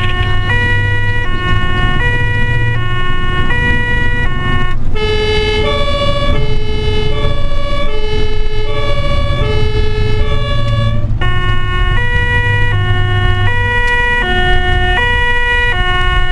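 German ambulance two-tone siren (Martinshorn) sounding its alternating high–low call, heard from inside the vehicle's cab, with engine and road rumble beneath. Midway it changes to a different pair of tones for about six seconds, then changes back.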